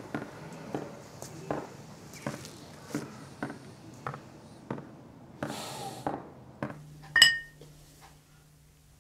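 A regular soft knocking, about one knock every three-quarters of a second, with a brief hiss about five and a half seconds in. Then, about seven seconds in, comes a single loud, ringing clink of small drinking glasses.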